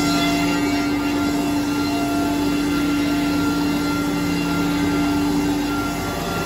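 Mercury CNC router spindle whining steadily as a 50 mm four-wing surfacing cutter skims the spoil board 0.5 mm deep, with the rushing noise of the cut. The whine fades near the end.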